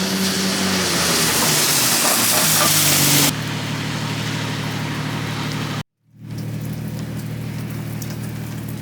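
Steady rushing hiss over a low hum, in several short clips joined by abrupt cuts. The hiss is loudest for about the first three seconds, then drops to a quieter steady level.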